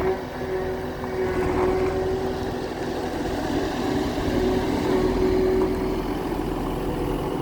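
An engine running steadily with an even hum, a working farm machine under way.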